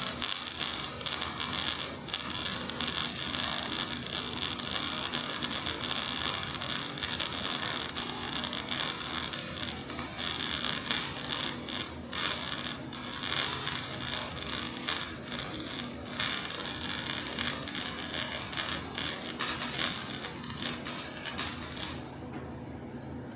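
Electric welding arc crackling steadily as a weld bead is run; the arc stops abruptly about 22 seconds in.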